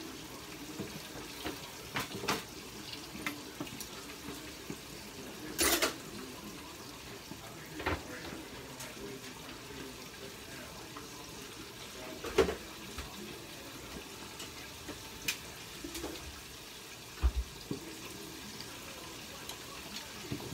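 Chicken pieces deep-frying in hot oil, a steady sizzle, with a few short knocks and clatters, the loudest about six seconds in.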